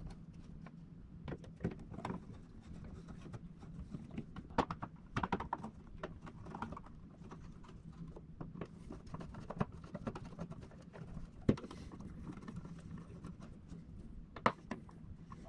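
Small clicks, taps and scrapes of a screwdriver driving the screws of a plastic switch wall plate, with a few sharper clicks about a third of the way in, around three-quarters of the way through and near the end. A faint steady low hum runs underneath.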